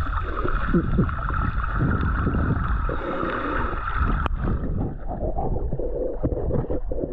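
Muffled underwater sound picked up by a camera held below the surface while snorkelling: water gurgling and sloshing with a steady high hum that fades about four seconds in, and one sharp click.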